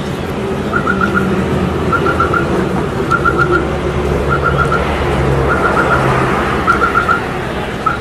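Street traffic running in a steady low rumble, with a repeating electronic-sounding chirp of four quick notes about once a second.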